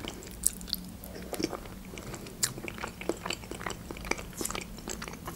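Close-miked chewing of soft, creamy mushroom julienne, with small wet mouth clicks scattered throughout.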